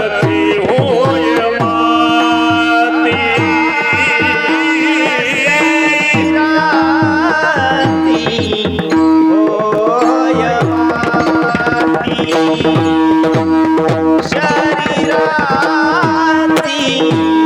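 Marathi kirtan chal: a man sings a devotional melody with ornamented, wavering notes over a steady held drone note, accompanied by a hand drum playing regular strokes with bass tones that slide down in pitch.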